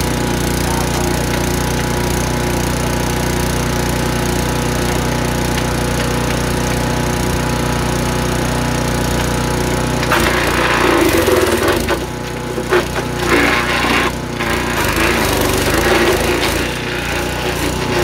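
A Forest Master 6.5 hp four-stroke petrol wood chipper runs steadily. About ten seconds in, a branch is fed in and it chips it with a loud crackling, splintering crunch, the engine's pitch dropping under the load several times before it recovers.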